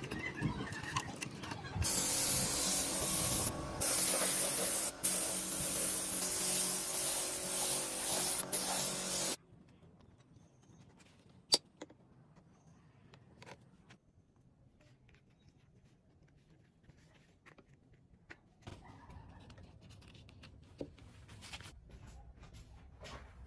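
A loud steady spraying hiss lasts about seven seconds, breaks twice briefly, then cuts off suddenly. Afterwards it is quiet apart from faint clicks and taps.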